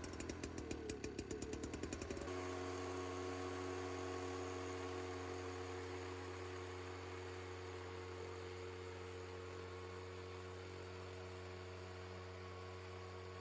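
Engine of a two-person portable tea-harvesting machine running as it shears new tea shoots from the bushes. For about the first two seconds it has a fast, even pulse, then it settles into a steady hum at constant speed.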